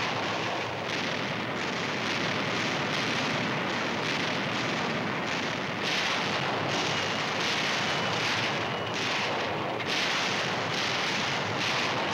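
Dense, continuous rumble and crackle of a bombardment (explosions and gunfire) on an old film soundtrack, with louder surges about every second.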